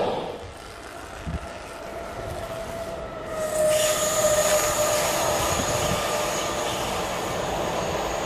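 Intermodal container freight train behind a DRS Class 88 locomotive coming closer: a rumble of wheels on rail with thin steady whining tones over it. It gets suddenly louder about three and a half seconds in.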